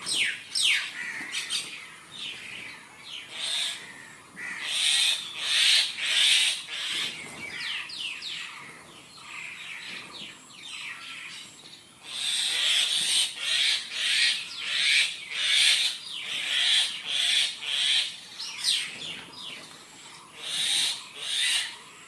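Many birds chirping and calling at once, a dawn chorus of quick falling chirps and harsh squawky calls that swell and ebb in waves, busiest from about halfway through.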